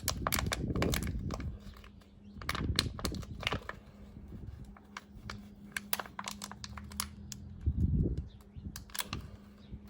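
Handling noise while rigging a homemade funnel: scattered clicks, taps and rustling, with a few low thumps near the start, about a third of the way in, and near the end, over a steady low hum.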